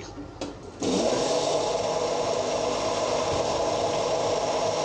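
Electric blender switched on about a second in and then running steadily, churning egg-and-oil mayonnaise that has already thickened while the last of the oil goes in as a thin stream.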